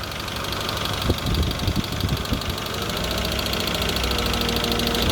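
BMW M50B25 2.5-litre inline-six engine running, with a few irregular knocks about a second in. This is the strange noise the owner puts down to the VANOS variable valve timing unit.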